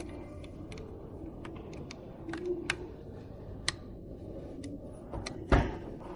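Scattered light clicks and taps, as of hard parts being handled and set down, with one heavier thump about five and a half seconds in, over a steady low background hum.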